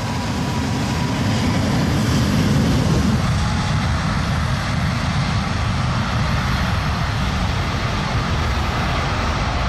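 Jet airliner engines at takeoff thrust: a loud, steady rushing noise that builds over the first few seconds and then holds.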